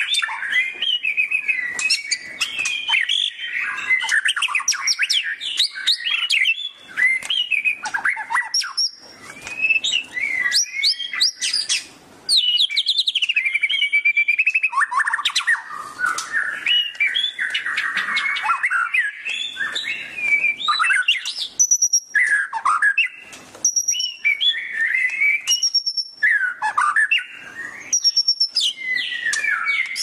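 White-rumped shama (murai batu) singing a long, varied song of quick whistled notes, trills and chattering phrases, broken by a few short pauses.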